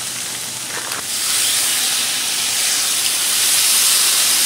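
Water squirted from a squeeze bottle onto a hot Blackstone flat-top griddle, hissing into steam from about a second in, over the steady sizzle of pork frying on the griddle.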